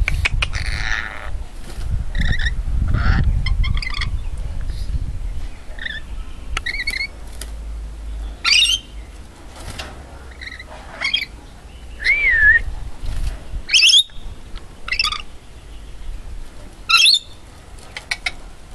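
Rainbow lorikeet calling: scattered short chirps and whistles, a wavering whistle near the middle, and three loud sharp screeches in the second half. A low rumble fills the first few seconds.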